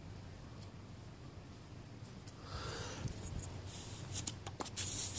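Faint handling sounds of a plastic drinking straw and small hand tools on a tabletop: light clicks and rustles, with a soft hiss about halfway through and a few sharper clicks after it.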